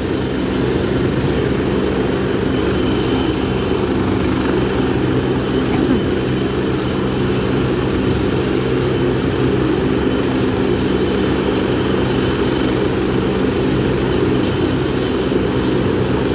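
Helicopter running on the ground at idle, its engines and rotor making a steady, unchanging low drone.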